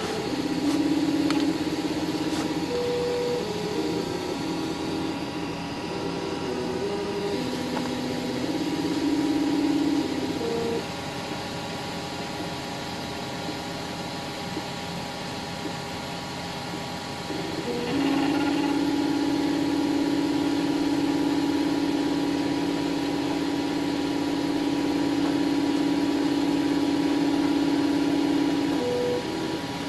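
Wanhao Duplicator 4 3D printer running a print: its stepper motors whine in tones that jump from pitch to pitch as the print head moves, over a steady fan hum. In the last third they hold one long steady whine.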